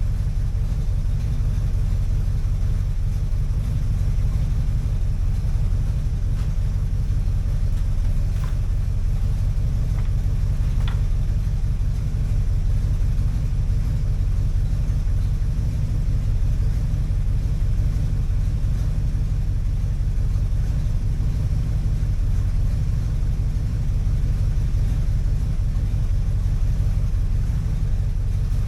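A motor running steadily with a low, even hum, with a few faint ticks between about eight and eleven seconds in.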